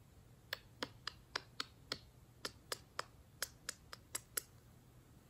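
A small makeup brush tapping into a pressed eyeshadow pan in a compact palette: a string of light, quick clicks, about fourteen in all, in two runs with a short pause between them.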